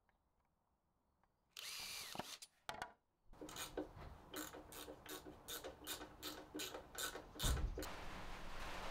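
A cordless drill runs briefly about one and a half seconds in, drilling through a plastic dust port with a whine that rises and falls. It is followed by a run of quick mechanical clicks, about three a second, and a low thump near the end.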